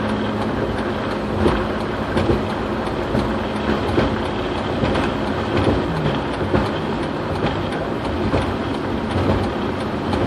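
Steady road and tyre noise with a low engine hum, heard from inside a car's cabin while it drives at steady speed, with faint light knocks every so often.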